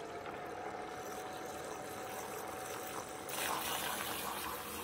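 Keurig K-Café milk frother running on the latte setting, its whisk spinning creamer in the steel jug: a steady motor whine under a liquid swishing that gets louder about three seconds in as the creamer begins to froth.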